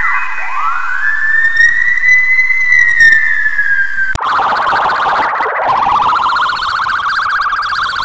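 Fire-truck siren wail played through audio effects. It rises, peaks and slowly falls, then cuts off abruptly about four seconds in. A rougher, wavering version of the same wail follows, rising again and holding.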